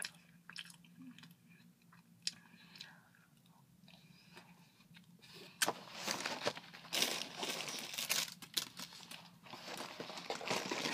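A person chewing a bite of Little Debbie Christmas Tree Cake close to the microphone. It is faint, with a few small clicks, at first, then louder and busier from about halfway.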